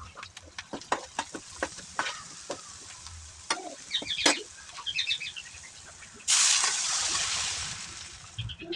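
Utensil clicking and knocking against a cooking pan. About six seconds in, a loud sizzle from the hot pan starts suddenly and fades away over about two seconds.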